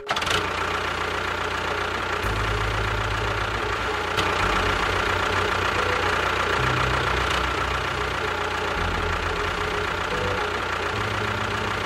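Tractor engine running at idle, with a low steady beat.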